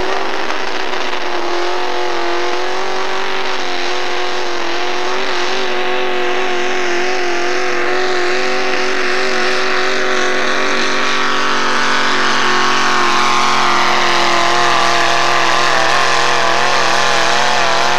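Modified four-wheel-drive pulling truck's engine running flat out at high revs under full load as it drags the weight-transfer sled. The pitch holds nearly steady with a slight waver.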